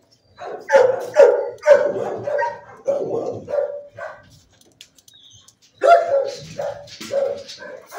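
Shelter dogs barking: a run of short, loud barks, one or two a second, a pause of about a second and a half near the middle, then the barking picks up again.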